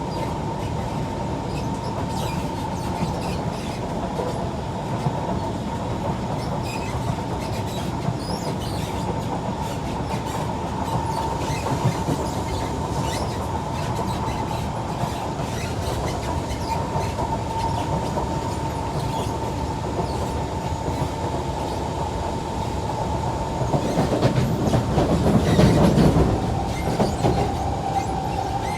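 Kawasaki C151 metro train running at speed, heard from inside the car: steady rumble of wheels on rails with a steady high whine. The noise swells louder for a few seconds near the end.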